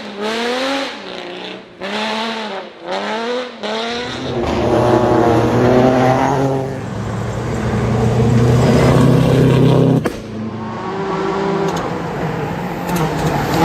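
Rally car engine revving hard, the pitch climbing and dropping about once a second through the first few seconds, then running loud and steady for several seconds. A sharp click comes about ten seconds in.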